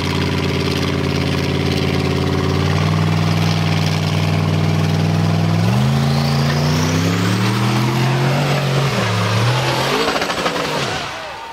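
Turbocharged formula offroad buggy's engine running at a steady pitch, then revving hard from about halfway. Its pitch climbs in steps with a high whine rising over it, then drops and fades near the end.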